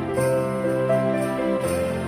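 Christmas music playing, with sleigh bells jingling over a melody of held notes.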